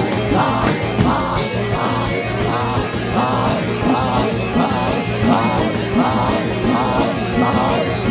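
Loud worship music with a steady pulse and a sustained low note, with voices raised over it in loud corporate prayer.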